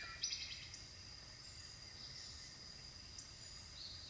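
A faint steady high insect trill, with a few short bird chirps over it, the loudest a quarter of a second in.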